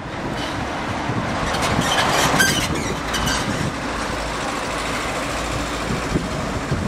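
Slow street traffic: vans and a car driving past at low speed, engines running and tyres on the road, a little louder about two and a half seconds in.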